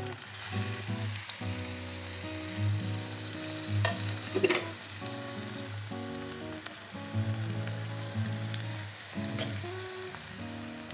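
Chopped tomatoes sizzling in about a cup of hot oil in a karahi, with a few sharp clicks, over soft background music.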